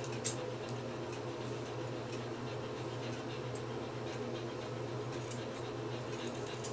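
Grooming scissors snipping through a dog's fur, a few short sharp snips with light rustling of the coat, over a steady low hum.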